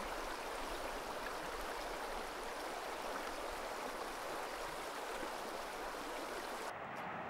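Steady rushing of flowing water, an even hiss with no distinct events. Near the end the higher hiss cuts away suddenly.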